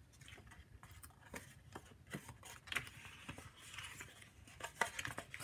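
Die-cut paper being folded and creased by hand: irregular soft crinkles, rustles and light taps of paper against the cutting mat, with a few sharper crinkles near the end.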